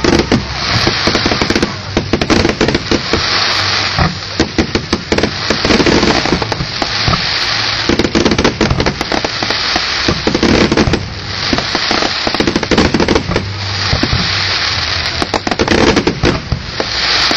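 Fireworks display: a dense, continuous crackling and popping of many bursting shells, swelling in waves every second or two.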